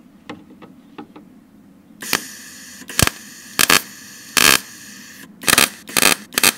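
Wire-feed (MIG) welder arc striking about two seconds in, then crackling and popping in a run of short welding bursts. It is stitch-welding a patch onto thin, rusty sheet steel, with a few faint ticks before the first strike.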